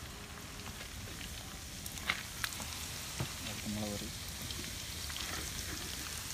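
Squid heads and tentacles deep-frying in a pot of hot oil, a steady sizzle. A few sharp metal clicks come about two to three seconds in as a long spoon works in the pot, lifting the fried pieces out.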